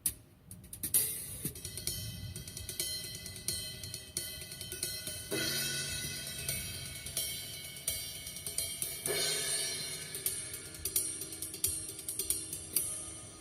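Recorded acoustic drum kit played back over a car audio system: busy cymbal and hi-hat strokes over snare and bass drum, with louder ringing hits about five and nine seconds in.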